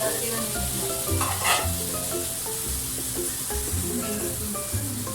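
Background music of held notes over a repeating bass pulse, mixed with a steady sizzling hiss, and a brief whoosh about a second and a half in.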